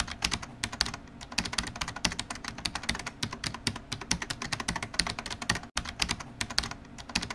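Keyboard typing sound effect: rapid, uneven key clicks, several a second, with a brief gap a little past the middle.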